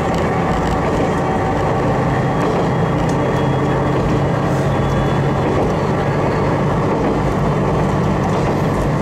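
Haimo 295 diesel railcar running along the line, its engine giving a steady low drone over the rumble of the wheels on the track.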